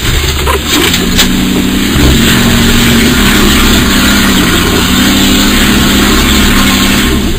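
Off-road 4x4's engine revving and then held at high revs under load from about two seconds in, as the vehicle tries to climb a steep mud bank.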